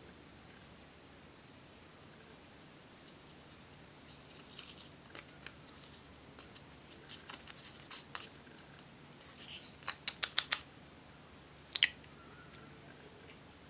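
Pink plastic tool scraping and breaking up pressed eyeshadow in its compact pan, heard as scattered crisp scratches and clicks. They begin after a few quiet seconds, with a quick run of sharp clicks late on.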